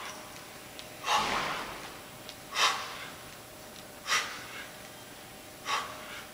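A man breathing hard in four sharp huffs, about one every second and a half, each falling away quickly, in time with the reps of a single-dumbbell front squat.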